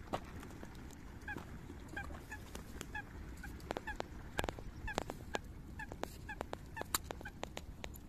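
Eurasian coots calling: many short, clear, pitched notes, a few a second, with scattered sharp clicks among them.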